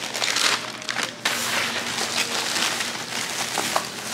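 Thin plastic takeout bag and plastic wrappers crinkling and rustling close up as hands rummage through the bag, with a brief pause just over a second in.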